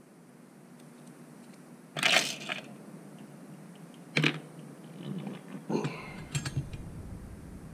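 A coil spring is dropped into a clear parts bowl with a short clatter about two seconds in. A sharp tap follows as the small plastic spring seat is set down. Near the end come several knocks as the aluminium carburetor body is handled on the bench.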